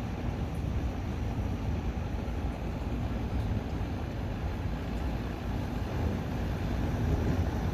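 Thunderstorm heard as a steady low rumble, rising slightly near the end, with no sharp thunderclap.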